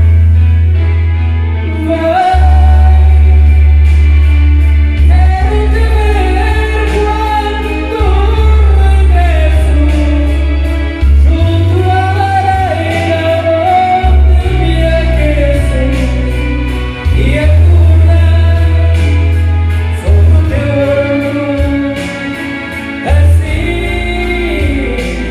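Singing over a karaoke backing track with a loud bass line.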